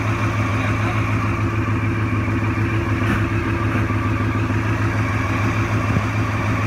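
Motorcycle engine idling steadily, a constant even hum with no revving.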